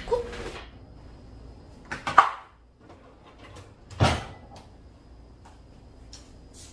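Household handling noises: a clatter about two seconds in and a single knock about four seconds in, with a few light clicks between, typical of a cupboard door being opened and shut.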